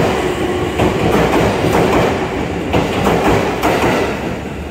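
JR E257 series electric train pulling out past the platform, its wheels clacking over rail joints about once a second, with a steady hum in the first half.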